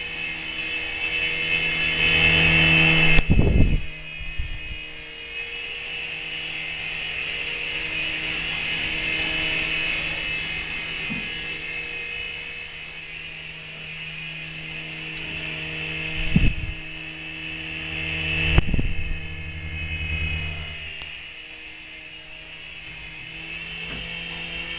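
Small indoor radio-controlled helicopter's electric motors and rotors whining steadily, the pitch holding while the level swells and eases, with a few sharp knocks: one about three seconds in and two close together later on.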